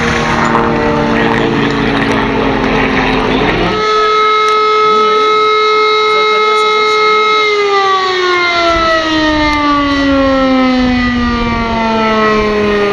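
Motor siren with a rotating rotor, holding a steady high tone and then winding down in a long falling wail from a little past halfway. In the first few seconds a lower tone sounds over a rumble, broken off by a sudden jump to the high pitch.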